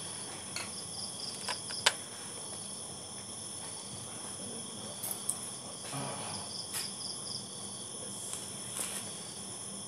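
Crickets and other night insects trilling steadily, with short runs of pulsed chirping. A few sharp clicks, the loudest just under two seconds in.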